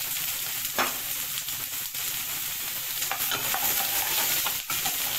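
Sliced vegetables sizzling in a hot pan as they are stir-fried with a wooden spatula, with a few short scrapes and knocks of the spatula against the pan.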